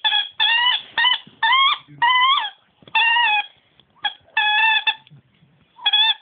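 A dog giving a string of high-pitched squeaks in place of barks, about eight short calls in quick succession, some rising in pitch at the end.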